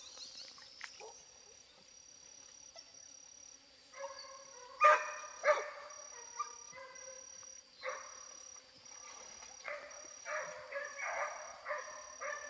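Hunting hounds baying, calling now and then at first and then in a quicker run of bays over the last few seconds, the sign of the dogs chasing a paca.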